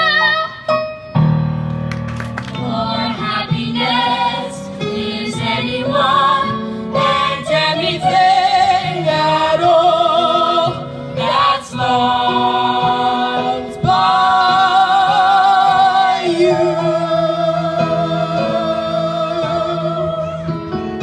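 Young musical-theatre cast singing a song together over an instrumental accompaniment, with several long held notes and a final note sustained for the last few seconds.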